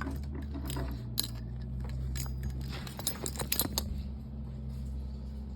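Light clicks and rattles of small hard plastic 3D-printed figures and keychains being handled, bunched in a flurry just past the middle. A steady low electrical hum runs underneath.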